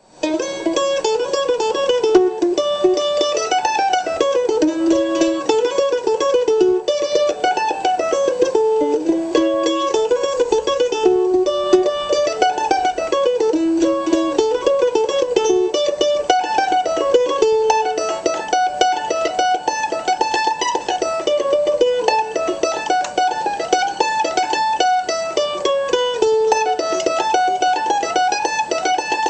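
Vessel A5 mandolin played solo: a continuous picked single-note melody of quick runs climbing and falling, starting right at the opening.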